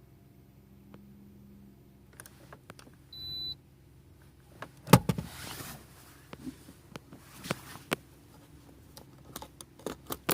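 Plastic clicks and knocks of a plug being worked in and out of a 12-volt socket, the loudest about five seconds in, with a short high electronic beep about three seconds in.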